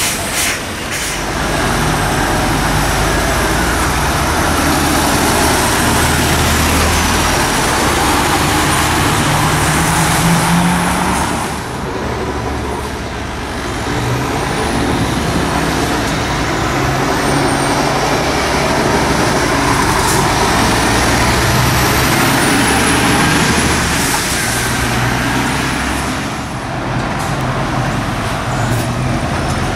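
Scania articulated lorries with refrigerated trailers driving past close by, one after another: diesel engines running and tyres rolling on the road. The sound dips briefly twice, as one truck gives way to the next.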